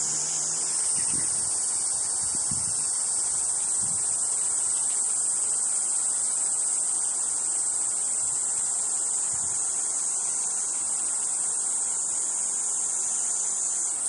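Steady, high-pitched chorus of singing insects, a continuous hiss without breaks, with a few faint low buzzes now and then.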